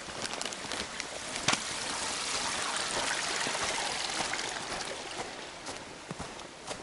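Running water of a small stream or trickle, growing louder in the middle and fading again, with walking footsteps on the path and a sharp click about a second and a half in.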